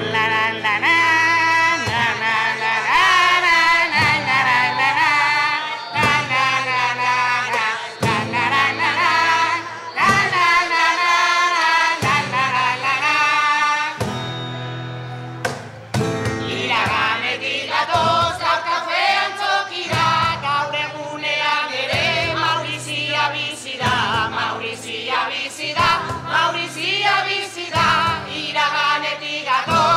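A group of singers sings a carnival kopla in chorus to acoustic guitar and cajón, with a short break about halfway through before the song picks up again.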